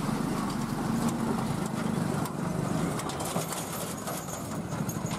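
Multi-axle Tata lorry's diesel engine running with a low, rough throb as the truck drives past close by, easing off a little in the second half.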